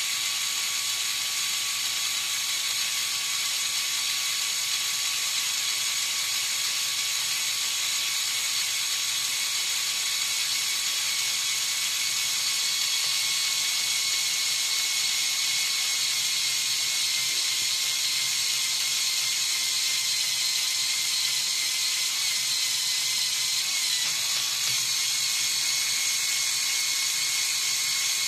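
Lego Technic 8258 crane truck's motor and plastic gear train whirring steadily as the crane boom moves.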